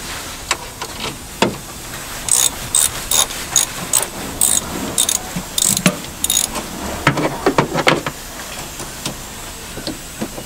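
Ratchet wrench clicking in short strokes, about two a second, loosening the clamp nut on a car battery's negative terminal. This is followed near the end by a few knocks and rattles as the terminal clamp is worked off the battery post.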